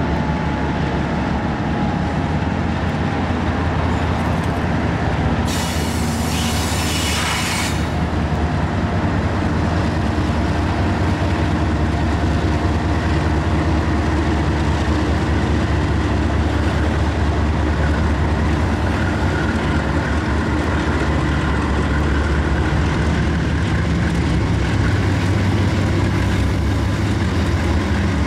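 Canadian Pacific and Norfolk Southern diesel-electric locomotives pass close by, their engines working hard with a steady low rumble as they pull a 9,000-foot freight slowly uphill. About six seconds in, a loud hiss lasts about two seconds.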